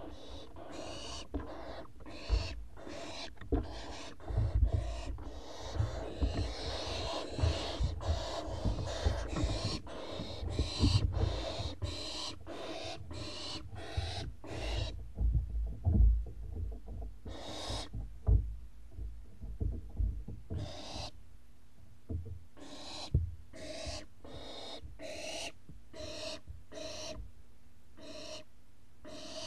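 Barn owl owlets giving a long series of short rasping hisses, the begging "snore" calls of young barn owls, close together at first and more spaced out later. Low thumps and rumbling from the birds moving in the nest box sit under the calls in the first half.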